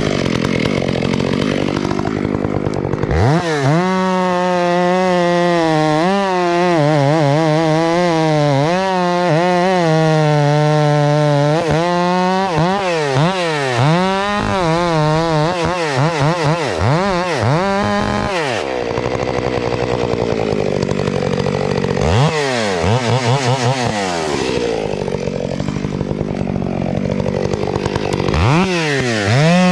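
Two-stroke chainsaw revving up and cutting into a tree trunk, its engine pitch dipping and rising as the chain loads and clears in the wood. About 18 seconds in it drops back to a lower speed, revs briefly a few seconds later, and goes back to full-throttle cutting near the end.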